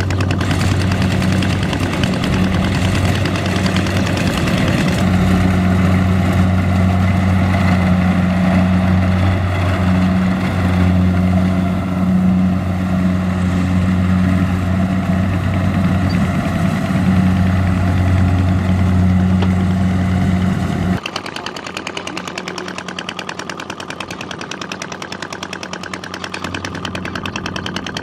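Engine of a rice-harvesting machine running steadily with a low hum and a fast rattling beat. About three quarters of the way through the sound cuts abruptly to a quieter, thinner engine note.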